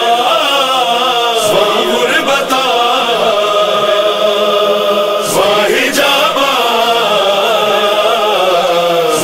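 Male voices chanting a noha, a Shia lament, in long sustained lines: a lead reciter with backing singers.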